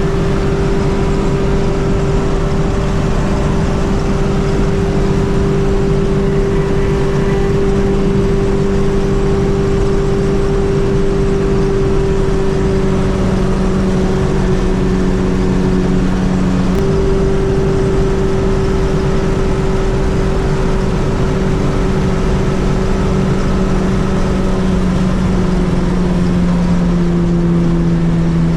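Fiat 600 with a swapped-in 1.6-litre engine cruising on the motorway, its engine giving a steady drone. There is a brief break in the tone a little past halfway, and the pitch falls gently near the end as the revs drop.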